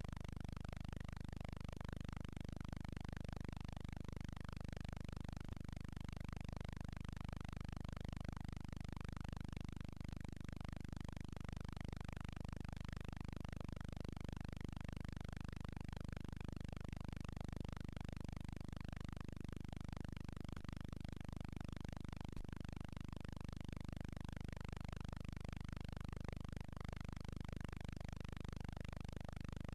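Steady low hum with a fainter hiss above it and nothing else: the empty soundtrack of a silent newsreel film transfer.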